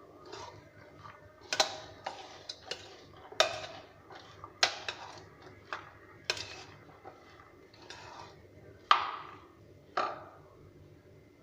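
Spoon clinking and scraping against a bowl as a salad is stirred: about a dozen irregular sharp clinks, each with a short ring.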